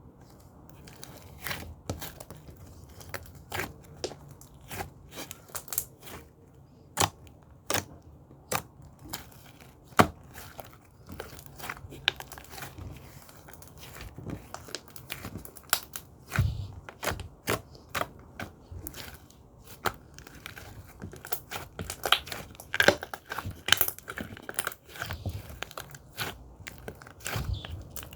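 Slime being mixed and squeezed by hand, giving irregular sharp clicking pops and crackles.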